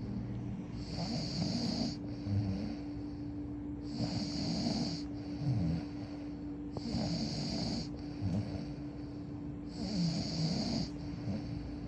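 Rhythmic snoring, four breaths about three seconds apart, each with a hissing breath over a low snore. A steady low hum runs underneath.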